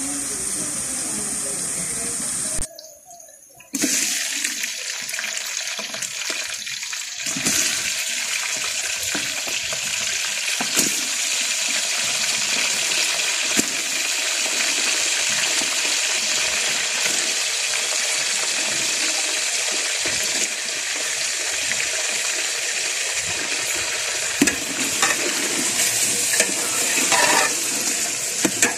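Onions, and then chicken pieces, frying in a large aluminium pot, a steady hiss of sizzling with a few faint clicks of the ladle. The sizzle drops out briefly about three seconds in.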